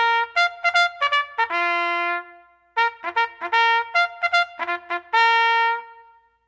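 Solo trumpet playing a quick melody of short notes in two phrases, each ending on a long held note.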